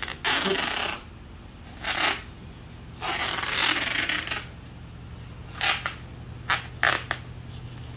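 Masking tape being pulled off its roll in three stretches, the longest about a second and a half, as it is wound around a cloth-wrapped jar. Later come a few short crackles as the tape is pressed and smoothed down.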